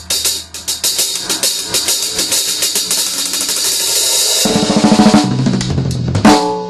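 Drum kit being played: a fast run of rapid strikes with cymbals ringing over them, then lower, pitched tom strokes for the last couple of seconds, ending on a single heavier tom hit.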